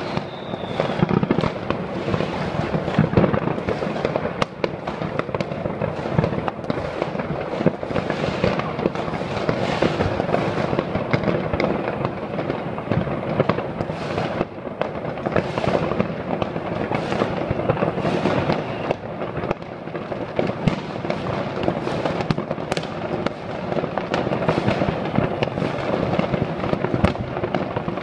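Many fireworks going off at once across a city: an unbroken mass of overlapping bangs and crackles with no pause.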